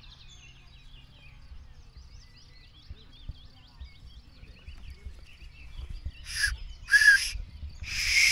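Birds chirping faintly, then near the end three short, loud, shrill blasts blown on a whistle made from a plant stalk, the last a little longer.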